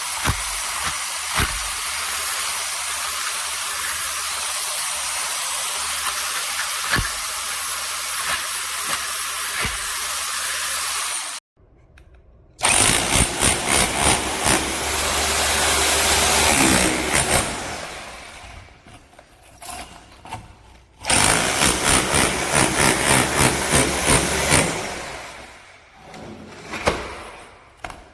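ENEACRO SDS-Plus rotary hammer drill running steadily with no hammer blows, in hammer-only mode where it is failing to hammer. After a sudden cut it works into concrete in two loud runs of rapid hammer blows, each winding down as the trigger is released.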